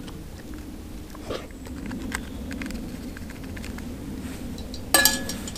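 Camp cooking gear being handled: scattered light rustles and taps, then a sharp clink near the end that rings briefly.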